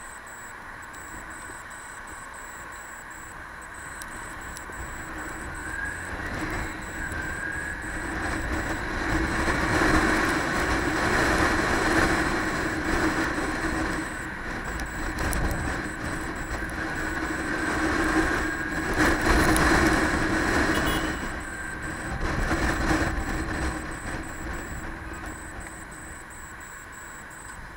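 Motorcycle being ridden in traffic, heard from the rider's helmet: engine running under wind rush. The sound swells louder twice around the middle as the bike picks up speed, then eases off.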